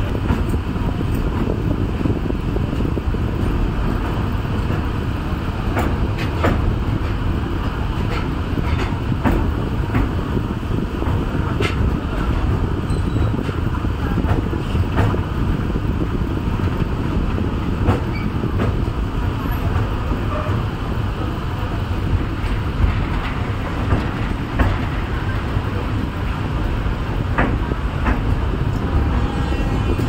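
Passenger train moving slowly across a river bridge, heard from inside the carriage at an open window: a steady low rumble with scattered sharp clicks and knocks.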